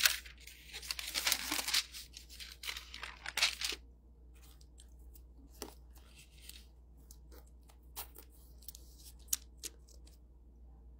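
Paper rustling and crinkling for about four seconds as pages are handled, then a few faint scattered clicks and taps.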